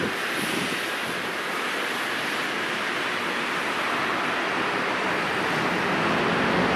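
Steady, even rushing of a Boeing 787-8's turbofan engines at taxi power.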